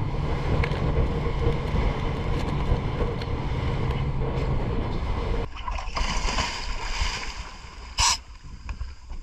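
Boat engine running with a steady low drone. About five and a half seconds in it gives way abruptly to wind and water noise, with one short loud rush about eight seconds in.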